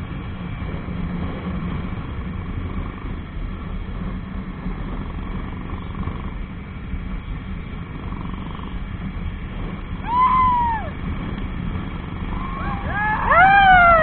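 Jawa 42 motorcycle riding at steady speed: a continuous low engine and road rumble. About ten seconds in, a loud wailing call rises and falls in pitch, and near the end several overlapping calls of the same kind come together, the loudest sounds here.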